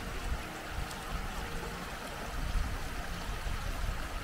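Small stream trickling and splashing over stones, a steady rushing hiss with a low, uneven rumble underneath.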